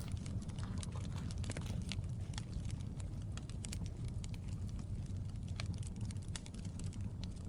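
Campfire crackling, with irregular sharp pops and snaps over a low steady rumble.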